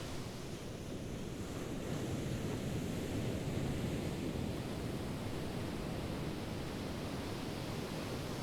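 Ocean waves washing on a shore: a steady low rush of surf that swells a little a few seconds in.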